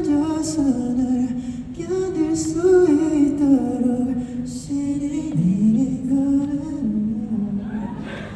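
Unaccompanied singing of a slow melody, with held notes and no instrumental backing.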